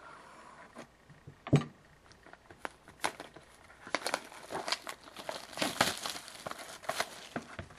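Plastic wrapping crinkling and tearing as a sealed box of trading-card packs is opened and emptied, with scattered crackles that grow busier after about four seconds. A single soft knock about a second and a half in.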